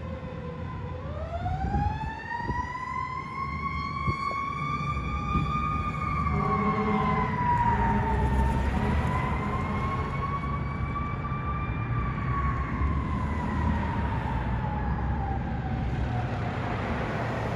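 Fire truck siren on a slow wail, rising and falling twice and fading away, over low engine and traffic rumble, with a short burst of lower horn tones about six seconds in.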